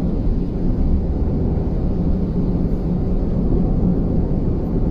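Steady low rumble of road, tyre and engine noise inside a car's cabin while driving fast.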